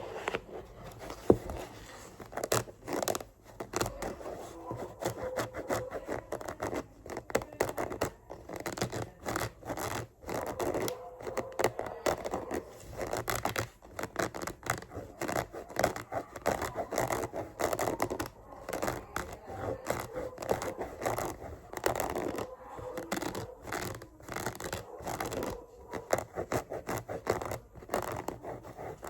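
Scratching and scraping on a book in quick, irregular strokes, with one sharp tap about a second and a half in.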